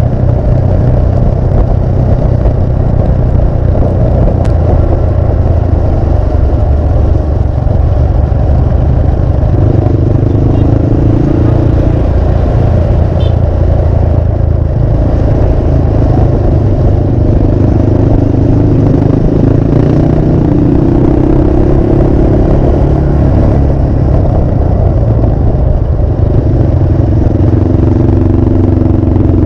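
Motorcycle engine running while being ridden at light throttle, under a steady low rumble. The engine note comes up and holds for a few seconds several times, around a third of the way in, in the middle and near the end.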